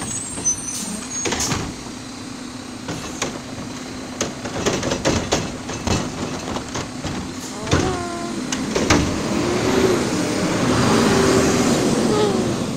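Automated side-loader garbage truck working at the curb: engine running while its hydraulic arm lifts and tips a wheelie bin over the hopper, with repeated clanks and knocks of the bin and arm, a wavering hydraulic whine in the second half, and a hiss of air near the end.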